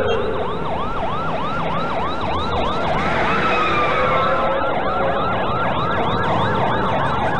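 Ambulance siren in fast yelp mode, a rapid rising-and-falling sweep repeating about three times a second. A second, overlapping sweep pattern joins about three seconds in as the ambulance passes.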